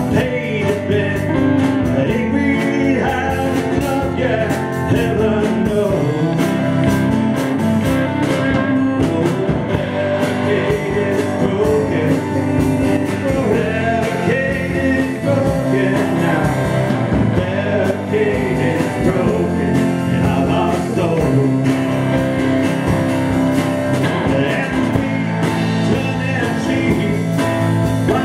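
Small rock band playing live: a man singing lead over strummed acoustic guitar, with electric bass, electric guitar and a drum kit.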